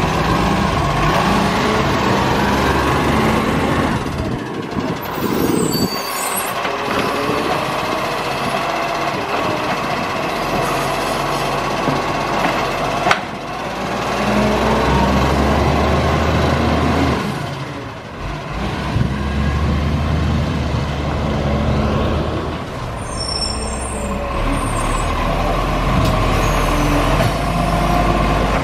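Garbage truck's diesel engine running, rising in load twice, with a steady whine over it and short air hisses about five seconds in and again later on.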